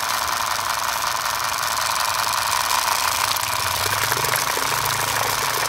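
DIY miniature diesel-engine water pump model running with a steady whine and a light rattle. About halfway through, its pitch steps up slightly as water starts gushing from the pump outlet and splashing onto the mud.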